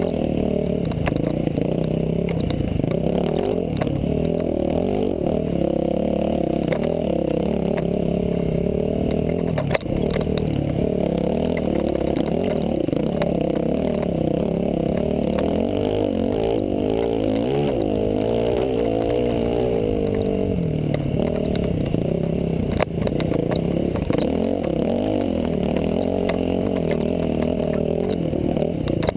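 Dirt bike engine running hard under load, its pitch rising and falling as the throttle is worked over rough ground, with the bike clattering over the terrain and a sharp knock about ten seconds in and another near twenty-three seconds.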